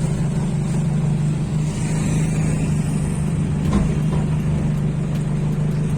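Jeepney engine running with a steady low drone as the vehicle travels, with one brief knock about four seconds in.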